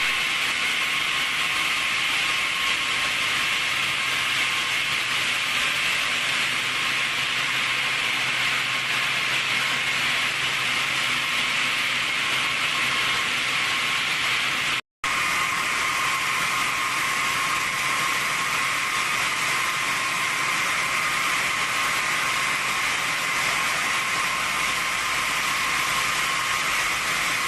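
Stone core-boring machine drilling into a large stone block: a steady grinding hiss with a constant high whine. It cuts out for a moment about halfway.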